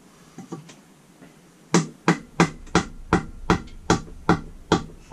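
Hammer blows on a wooden drift, driving a new gib key into the hub of a Lister D engine's flywheel to lock it on the crankshaft. A few light taps come first, then from about a second and a half in a steady run of sharp strikes, about three a second.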